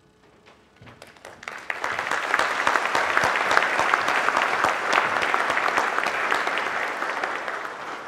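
Audience applauding, building up about a second in and fading toward the end.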